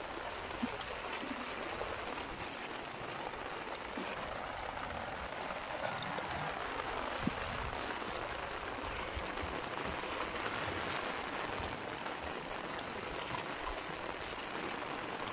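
Steady rain falling on shallow standing water in a flooded paddy field, an even hiss with a few faint ticks of drops.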